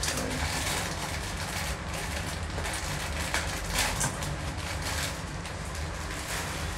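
Steady noise from the lit gas stove burner under the noodle pot, with a few light rustles and clicks as seasoning is tipped from a plastic packet into the pot, the loudest about three to four seconds in.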